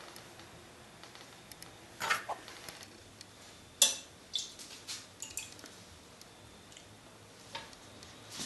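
Metal spoon stirring ramen in a stainless steel pot, clinking and scraping against its sides: a scattered series of sharp clinks, the loudest a little under four seconds in.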